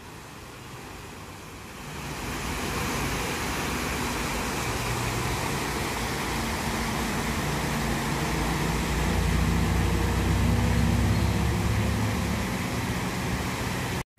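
Steady rush of river water spilling over a low weir, mixed with rumbling road traffic from an elevated overpass; the traffic rumble swells and is loudest around 9 to 11 seconds in, like a heavy vehicle passing.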